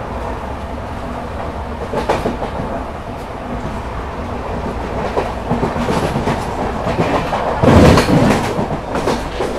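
Passenger train running at speed, its wheels clattering over rail joints in irregular clicks over a steady rumble, with a louder heavy rattle about eight seconds in.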